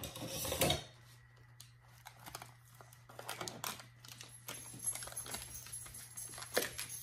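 Paper wrapper crinkling and tearing as a stick of butter is unwrapped: irregular small crackles and rustles, with a louder bout of handling noise in the first second.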